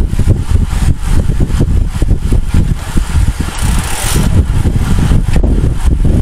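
Wind buffeting the microphone of an onboard camera on a moving racing bike: a loud, unsteady low rumble, with a brief rush of hiss about three and a half seconds in.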